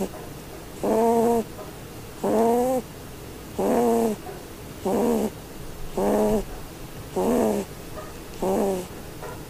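A small pet snoring: a short, pitched snore about every one and a quarter seconds, in a steady rhythm.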